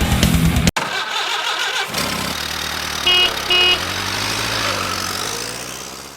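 Heavy metal music cuts off abruptly, then a vehicle engine runs and a car horn honks twice in quick succession. The sound fades out near the end.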